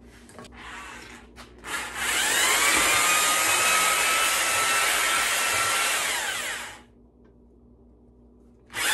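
Electric drill spinning a cylinder hone with 200-grit stones inside the oiled bore of an outboard engine block. The drill winds up about two seconds in, runs steadily with the stones grinding for about four seconds, then winds down, and starts again right at the end. Brief hisses come first.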